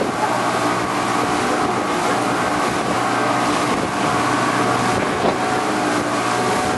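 A steady motor drone with a continuous hum, under wind noise on the microphone.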